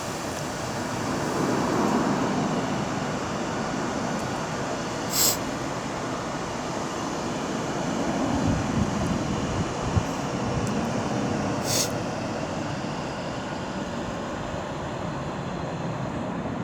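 Train running through the station, a steady rumble with two sharp clicks about six seconds apart and a few low thuds between them.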